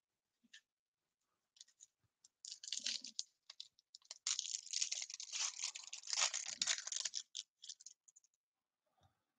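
Foil wrapper of a Topps trading-card pack being torn open and crinkled. A short crackling tear comes about two and a half seconds in, then a longer run of crinkling from about four to seven seconds, with a few small clicks around it.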